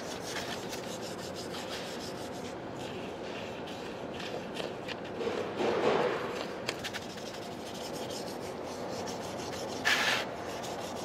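Small brush scrubbing wet carbon deposits off the metal vane ring of a diesel variable-geometry turbocharger: a steady scratchy rubbing made of quick back-and-forth strokes. It grows louder around the middle and gives one short, louder burst about ten seconds in.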